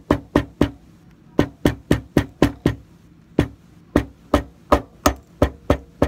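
Claw hammer tapping lightly on a leather jacket's zipper seam over a table, pressing the leather down onto double-sided tape. Quick sharp taps, about four a second, come in short runs with brief pauses between them.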